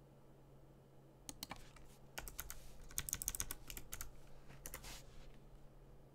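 Typing on a computer keyboard: a quick run of keystrokes starts about a second in, is densest in the middle and stops about five seconds in.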